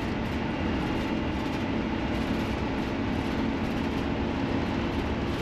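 Steady road and drivetrain noise inside a motorhome's cab, rolling down a long 6% grade at highway speed, with a low steady drone under it.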